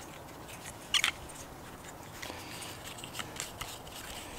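Quiet metallic clicks and scrapes of a screwdriver working at a small engine carburetor's parts, with a sharper double click about a second in.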